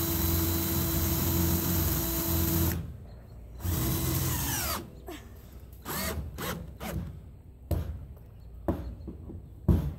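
Cordless drill driving self-tapping roofing screws into a corrugated metal roof panel: a steady whine for about three seconds, then a second short run about a second later that winds down. After that, scattered light knocks and clicks on the tin, with a sharp knock near the end.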